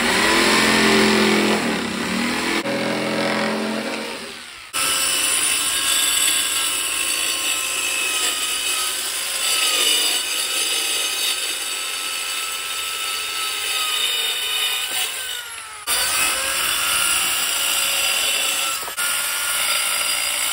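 A corded jigsaw cutting plywood, then from about five seconds in a corded circular saw cutting through wooden boards, its motor whining steadily under load. The sound breaks off abruptly a few times between cuts.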